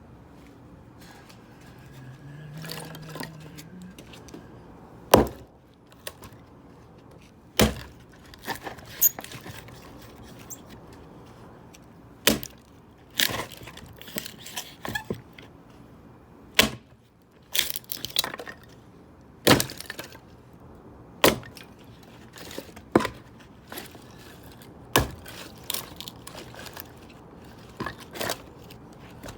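An axe splitting dry, seasoned firewood: a dozen or so sharp chops come every one to four seconds, each followed by cracking and the clatter of split pieces.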